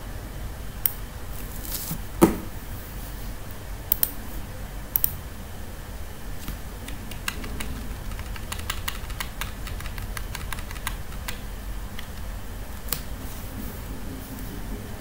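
Computer keyboard and mouse clicking: a few scattered clicks with one louder knock about two seconds in, then a quick run of key taps for several seconds in the middle. The taps are the kind made when nudging a shape with the arrow keys. A low steady hum runs underneath.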